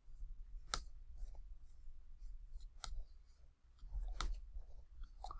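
Computer mouse clicks: a handful of short, sharp clicks spaced irregularly, the clearest under a second in, near three seconds and just after four seconds, over faint room tone.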